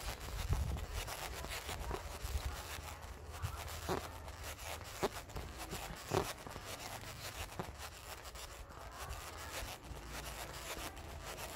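Rubbing and rustling of a handheld phone's microphone as it is carried at walking pace, over a low rumble, with a few light clicks and taps.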